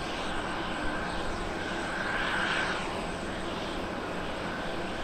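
Jet engine noise of an Airbus A321neo's Pratt & Whitney geared turbofans on its landing rollout: a steady broad rumble with a whine that swells about two seconds in.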